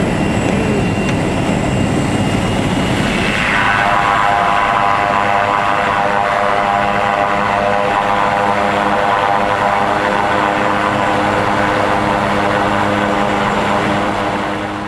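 Pilatus Porter ski-plane's engine and propeller, heard from inside the cabin during a landing on glacier snow. A dense rumbling noise gives way, about three and a half seconds in, to a steady, pitched engine-and-propeller whine made of several tones.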